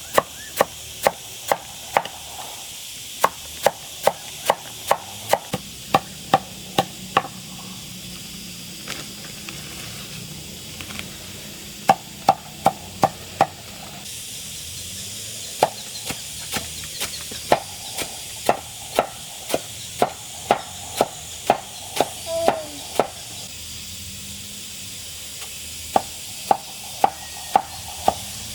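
Banana plant stalks being chopped with a blade: quick, even strokes about three a second, in runs broken by short pauses.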